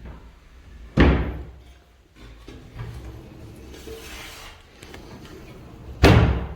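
Sliding door pushed along its track and banging against the frame twice, once about a second in and again near the end. Each bang is a sharp thud that dies away over about half a second.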